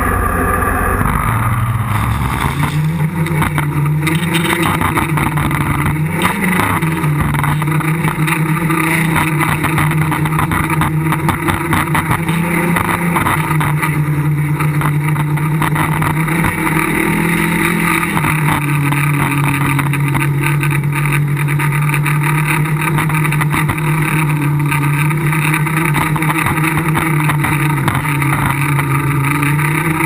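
Tricopter's three electric motors and propellers spool up about two seconds in, then hum steadily in flight, the pitch shifting now and then as the throttle changes. Strong wind buffets the onboard microphone.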